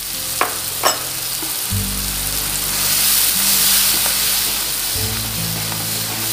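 Curry spice paste of curry powder, onion, garlic and ginger sizzling in hot oil in a non-stick wok, stirred with a spatula. Two sharp taps come in the first second.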